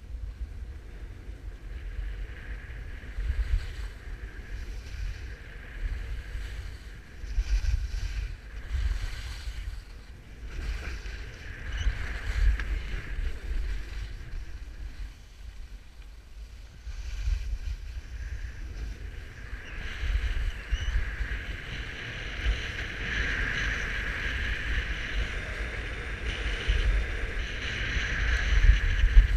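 Wind buffeting the microphone of a camera moving fast downhill, a gusty low rumble, over the hiss and scrape of sliding on packed snow; the snow hiss grows louder in the second half.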